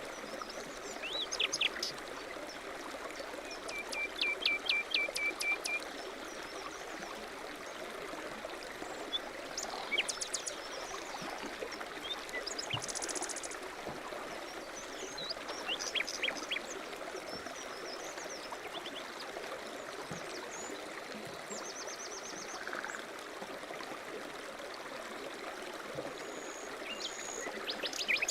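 Steady rushing of a mountain stream, with various songbirds chirping and calling over it, including a fast trill of repeated notes a few seconds in.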